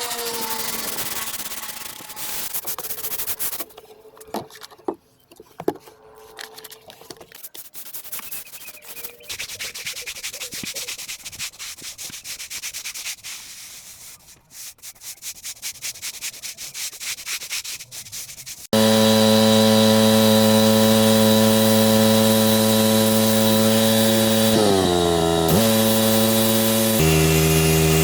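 Stiff brush scrubbing stone paving slabs with rapid rhythmic strokes. About two-thirds of the way in, a loud, steady engine cuts in suddenly, most likely the pressure washer's, and drops in pitch twice near the end.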